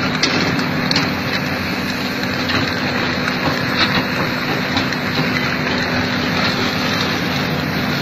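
Excavator-mounted drum cutter grinding into a soft rock face. The machine runs steadily, with a constant low hum under a dense grinding noise and scattered small ticks of debris.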